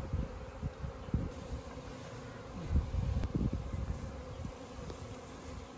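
Honeybee swarm buzzing in a steady hum, with low thumps and rumbling near the start and again about three seconds in.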